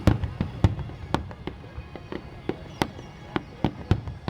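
Aerial fireworks shells bursting in quick, irregular succession, about a dozen sharp bangs with rumbling echoes.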